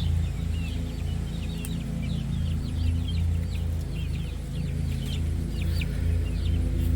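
Poultry chirping: many short, high-pitched calls in quick succession, over background music with a low steady drone.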